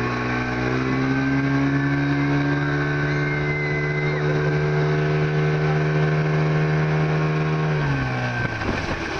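Towing speedboat's engine running steadily at speed, its pitch stepping up slightly about a second in. Near the end the engine note drops away and a noisy rush of wind and water takes over.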